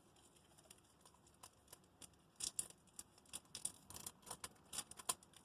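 Foil booster-pack wrapper crinkling and crackling as it is handled and opened: quiet at first, then a quick run of short sharp crackles and snips starting about two seconds in.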